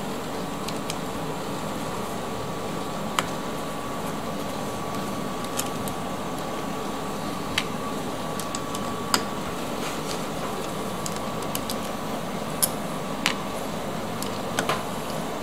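Scattered sharp clicks and taps of tools and metal parts being handled while a washing machine motor is taken apart, about a dozen in all, over a steady background hum with a faint high whine.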